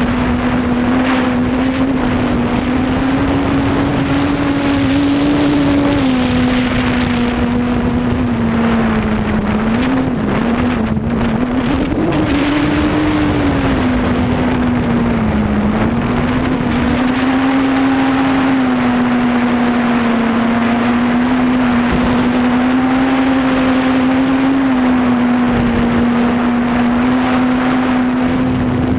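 Quadcopter propellers and motors humming loudly, heard from the camera mounted on the craft. The hum holds a steady pitch that wavers with throttle, dipping and rising briefly around the middle, over a rushing noise of air.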